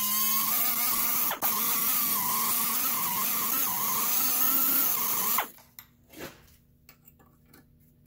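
Pneumatic right-angle air tool whining at high speed against a rusty steering knuckle's ABS sensor mount, its pitch wavering as it cuts, with a brief dip about a second and a half in. It cuts off suddenly about five and a half seconds in, followed by a few light clicks.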